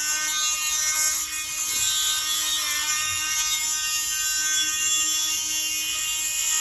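Small high-speed electric rotary tool, the kind used for porting a chainsaw piston, running at a steady high-pitched whine after spinning up.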